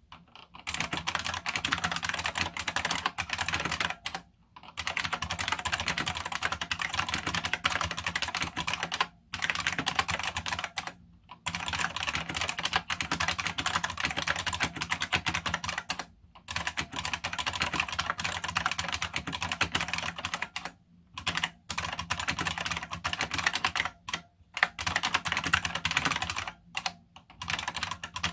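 Fast, continuous typing on a Unicomp Ultra Classic buckling-spring keyboard (Model M design), each key giving a loud click and clack as its spring buckles. The typing comes in long runs with brief pauses every few seconds.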